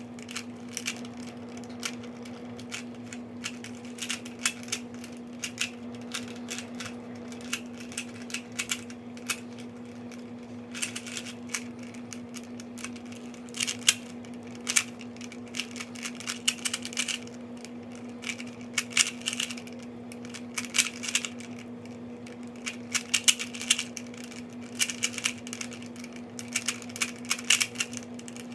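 Rubik's Cube being turned rapidly by hand in a timed solve: a steady run of small plastic clicks and clacks, coming in quick flurries, over a steady low hum.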